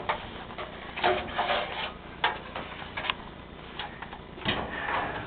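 Intermittent handling noises: a series of short scrapes, rustles and clicks a second or so apart, against a low steady background.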